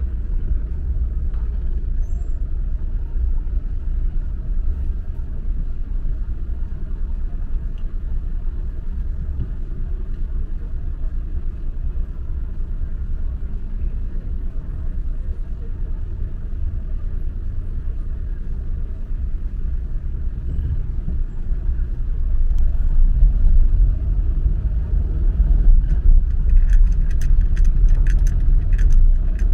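Car driving slowly in city street traffic: a steady low rumble of engine and road noise that grows louder about three quarters of the way through. A run of sharp clicks sounds near the end.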